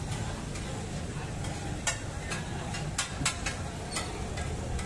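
Metal spatula tapping and scraping on a large iron tawa where minced meat is frying, a series of sharp clicks starting about two seconds in, over a steady low background hum.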